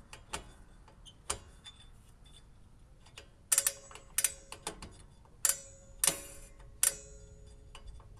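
About six sharp metallic clicks, a little over half a second apart, from about three and a half seconds in, each leaving a brief ringing, with fainter ticks before them. This is a rear drum brake's star-wheel adjuster on a 2005 Toyota Prius being turned notch by notch to take up slack in shoes that are still very loose.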